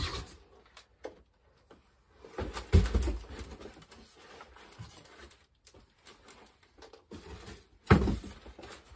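Cardboard boxes being handled on a wooden workbench: a thump as the shipping carton is tossed aside, a louder thump about three seconds in and another near the end as the long boxed model is set down and shifted, with faint cardboard scraping and rustling between.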